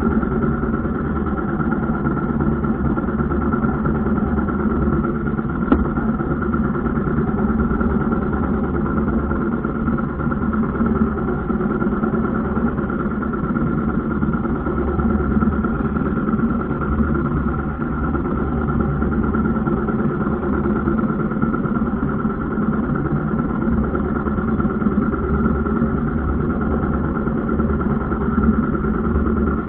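Boat engine running steadily at a constant speed, its drone unchanging throughout, with a single brief click about six seconds in.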